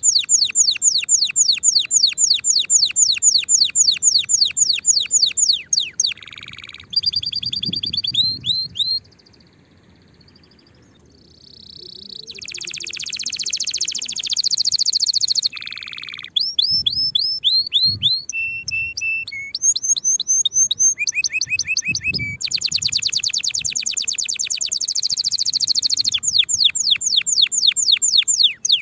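Domestic canary singing: a long fast run of repeated falling notes, then changing phrases of trills, buzzy rolls and clear whistles, with a short pause near the middle.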